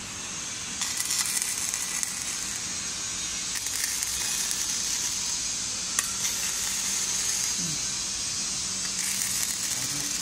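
Robotic arc welding on scaffolding parts: the welding arc crackles and sizzles steadily, growing louder about a second in, with one sharp snap about six seconds in.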